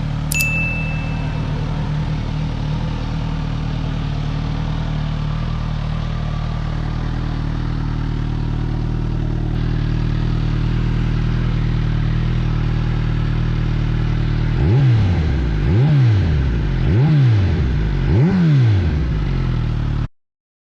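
Suzuki GSX-S1000's inline-four engine idling steadily, then blipped four times about a second apart, each rev rising and falling back to idle. A short beep sounds just after the start.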